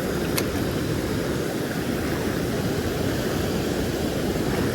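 Steady rush of water pouring through a river dam, a dense, even noise, with a single short click about half a second in.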